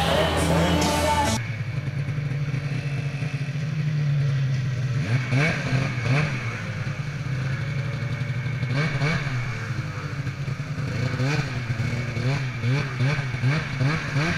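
A snowmobile engine running loud for the first second or so, then an abrupt change to a snowmobile engine idling low and steady, heard from on the sled, with several short throttle blips as it creeps along.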